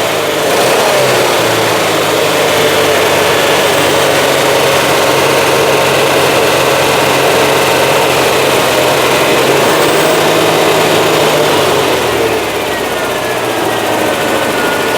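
Citroën GSA's air-cooled flat-four engine running at a steady speed, its note changing and dropping away about twelve seconds in.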